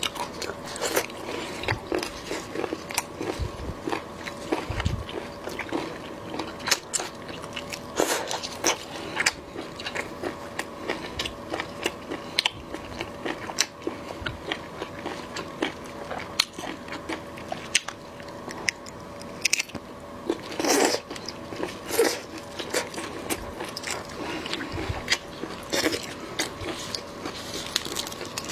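Close-miked chewing and crunching of prawns, with many small sharp clicks and crackles of shell and flesh being bitten and handled. A few louder crunches stand out.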